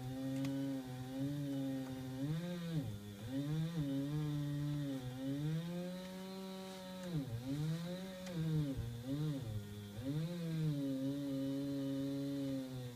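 Chainsaw running while cutting into a tree, its engine pitch repeatedly sagging and picking back up as the chain loads in the wood.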